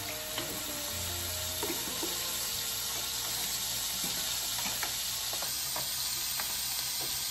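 Oil and food sizzling steadily in a frying pan, with a few light knocks, plausibly from a knife or utensil on a cutting board. Faint background music sounds for the first couple of seconds.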